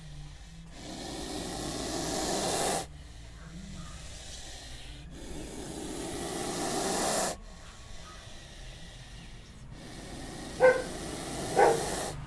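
A snake hissing in three long hisses of about two seconds each, every one swelling and then cutting off sharply, with quieter breathy noise between them. Near the end, two short, sharp sounds are louder than the hisses.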